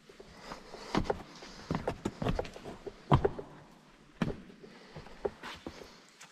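Boots scuffing and knocking on cave rock as someone clambers over it: irregular footsteps and scrapes, the loudest knock about three seconds in.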